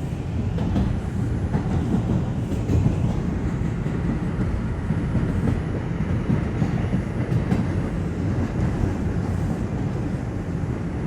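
R142 subway train running between stations, heard from inside the car: a steady low rumble of wheels on rail with a few faint clicks.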